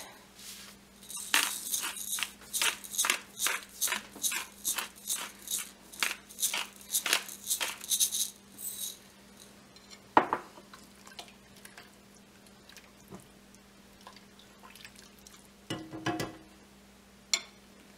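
Pepper mill grinding black pepper over a pot of cream sauce: a quick run of gritty crunching strokes, about three a second, lasting some seven seconds. Then a single knock, and near the end a short scrape of a spatula stirring in the pot, over a faint steady hum.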